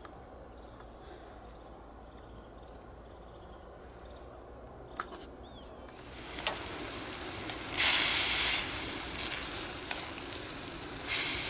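Diced meat and onions sizzling in a stainless steel pan on a small camp stove. It starts about halfway through and swells louder twice.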